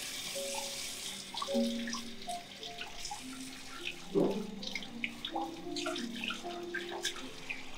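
Water running from a tap into a basin, dying away in the first second or so, then scattered drips, light clicks and short plinking tones.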